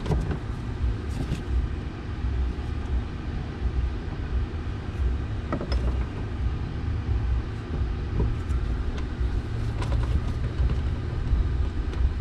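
A steady low rumble throughout, with a few light clicks and taps: hand work pushing a plastic expanding clip into the car's bumper and screwing it home.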